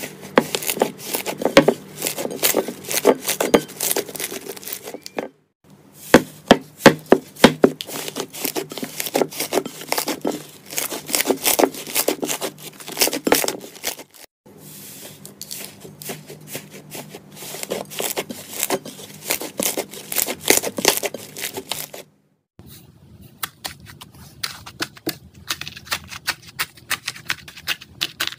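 Hands squeezing and kneading slime, with rapid sharp pops and crackles of trapped air bursting, broken three times by a moment of silence. In the last stretch the crackling turns finer and denser as foam-bead slime (floam) is pressed.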